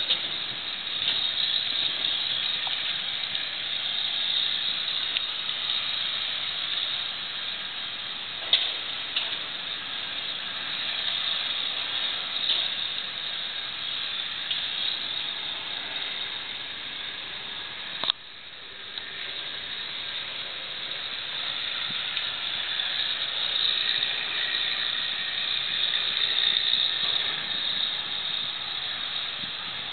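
Burning brush pile: a steady hiss with a few sharp cracks, the level dropping suddenly about two-thirds of the way through and building back up.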